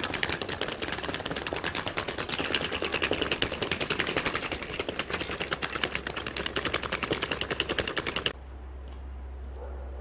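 Wheeled suitcase pulled over paved sidewalk, its small wheels clattering rapidly and unevenly over the paving joints. About eight seconds in the clatter cuts off abruptly, leaving only a low steady hum.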